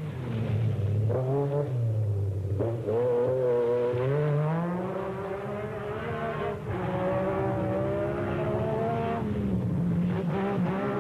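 Metro 6R4 rally car's V6 engine running at high revs under hard driving, its pitch climbing and then dropping several times as it changes gear.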